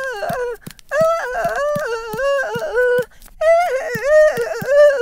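A high-pitched, sped-up cartoon voice hums a wordless tune in two-second phrases with short breaks. Quick footstep clicks come about four a second underneath.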